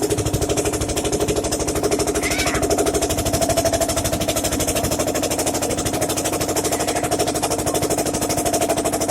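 Motorboat engine running steadily with a rapid, even chugging beat.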